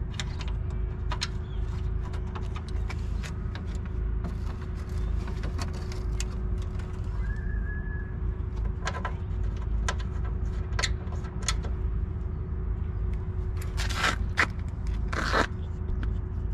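Scattered clicks, knocks and scrapes of hand work on metal engine parts, with two longer, louder scrapes near the end, over a steady low rumble and a faint steady hum.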